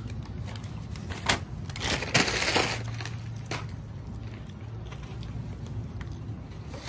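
Food packaging being handled: a couple of sharp clicks and a loud crinkling rustle about two seconds in.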